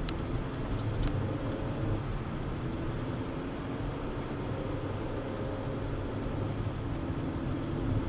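Car driving, heard from inside the cabin: a steady low rumble of engine and road noise with a faint engine hum, and a couple of small ticks near the start.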